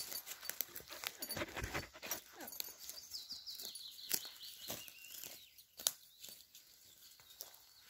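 Footsteps and rustling over dry pine needles, twigs and grass on a forest floor. A songbird's short falling song rings out about three seconds in.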